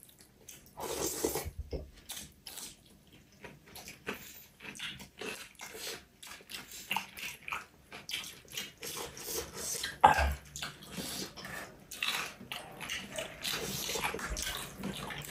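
A person eating close to the microphone: irregular wet chewing, lip smacking and squelching of food. The loudest is a sharp click about ten seconds in.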